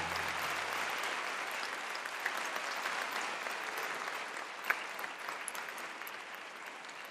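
Audience applauding, a steady even clapping that slowly fades, while the music's last low note dies away in the first second. One sharper click stands out about two-thirds of the way through.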